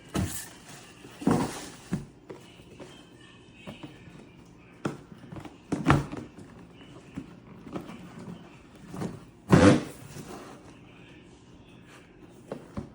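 Scattered handling knocks and thuds, about seven short ones, as objects are picked up and set down; the loudest comes about six seconds in, and a longer one just before ten seconds.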